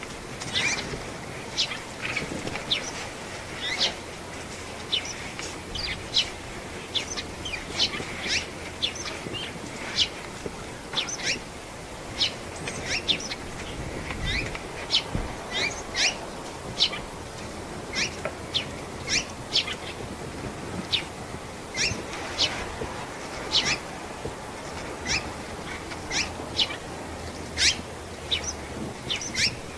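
Small birds calling: a steady run of short, sharp, high chirps, about one or two a second.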